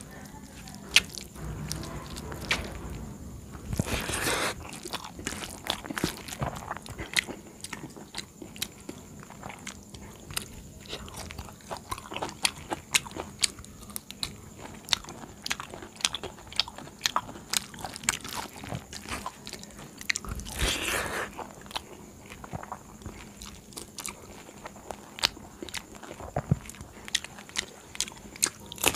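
Close-up chewing and crunching of a meal of rice, curry and stuffed okra (bharwa bhindi) eaten by hand, many small wet mouth clicks throughout. Two longer, louder crunches stand out, about four seconds in and again about twenty-one seconds in.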